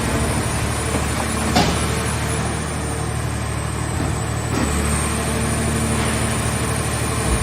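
Engine of a scrap-car baler running steadily under load, with one sharp metallic clank about one and a half seconds in.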